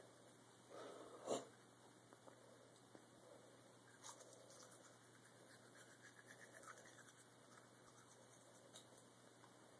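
Faint scratching of a toothbrush scrubbing a toddler's teeth, with a brief louder noise about a second in.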